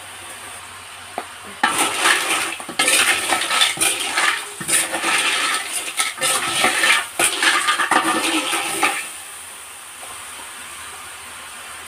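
Loud sizzling and spattering from a cooking pot of hot oil as ingredients are added, starting about two seconds in and stopping abruptly about nine seconds in.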